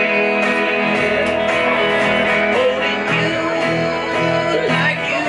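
Small live band playing an instrumental passage on electric guitar, upright double bass and a second guitar.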